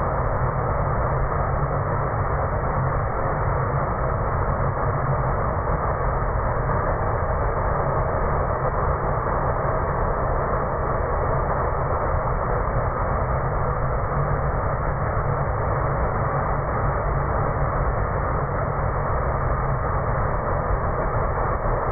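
Propane weed-burner torch burning continuously: a steady rushing flame noise with a deep rumble and no break.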